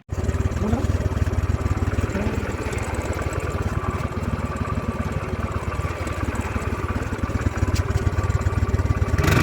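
Royal Enfield Classic 500's single-cylinder engine running steadily after its fuel pump repair, a little louder near the end.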